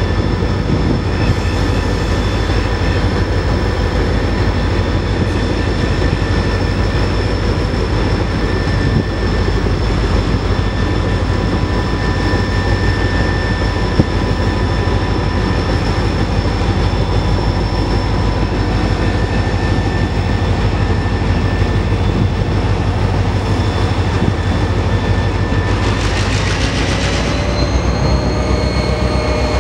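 EMD diesel-electric locomotives hauling a mineral sands train, their engines running with a steady low drone and several steady high whining tones over it. About 26 seconds in there is a brief burst of rushing noise.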